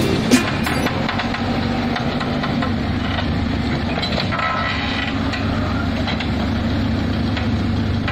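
Heavy diesel road-construction machinery running steadily with a low rumble, with a few sharp knocks near the start, the loudest about a third of a second in.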